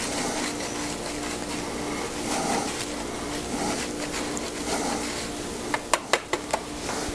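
Fresh Parmesan being grated on a small handheld grater, the cheese scraping over the metal teeth. There is a steady hum underneath, and a few sharp clicks about six seconds in.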